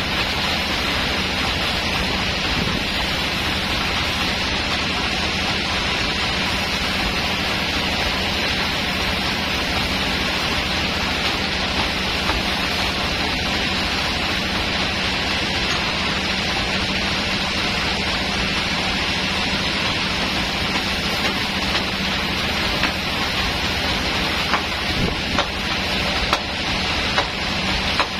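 Band sawmill running steadily without cutting: a constant machine hum with a strong hiss. A few short knocks sound near the end.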